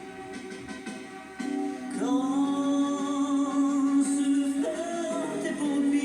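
Slowed-down playback of a song from a Sony HF 60 cassette tape: a singing voice over accompaniment, holding a long, wavering note from about two seconds in.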